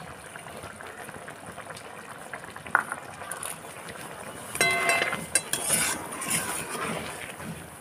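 Egg curry simmering in a metal kadai with a soft bubbling, a sharp click about three seconds in. About halfway through, a metal spatula scrapes and clinks against the pan as the curry is stirred, with a brief metallic ring.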